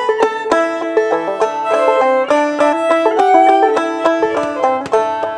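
Fiddle and clawhammer banjo playing an old-time instrumental break together: steady picked banjo notes under the bowed fiddle melody, which slides between some notes.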